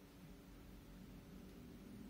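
Near silence: room tone with a faint steady low hum.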